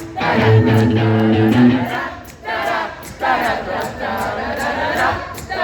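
Festival crowd singing along to a rock song in many voices at once, over held instrumental notes that drop out about two seconds in.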